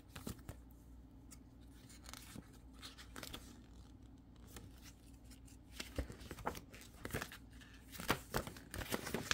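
Paper rustling as a printed quick start guide is handled and its pages are turned by hand, with scattered light clicks and taps that grow busier near the end, over a faint low hum.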